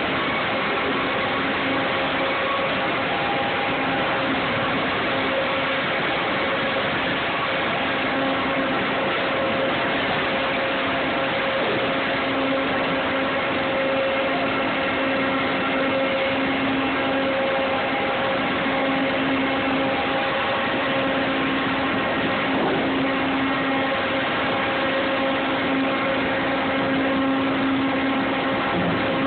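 Sawmill edger running steadily under loud mill machinery noise, with a droning hum that swells and fades several times.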